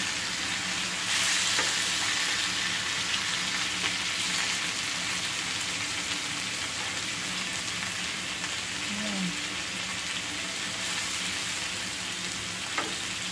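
Chicken pieces sizzling as they fry in a nonstick skillet, a steady hiss that grows a little louder about a second in. They are stirred now and then with a wooden spatula, giving a few light scrapes and knocks.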